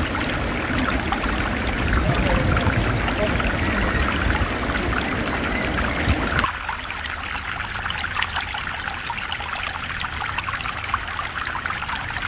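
Shallow stream water flowing and trickling as a steady rush. About six and a half seconds in it drops to a quieter, thinner trickle.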